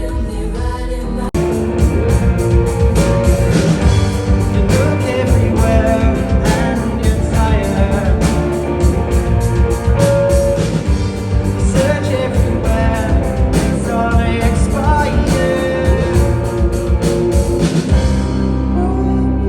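Live band music with singing and a steady drum beat, rock in style. It cuts abruptly to a different song about a second in, and gives way to a softer, sustained passage near the end.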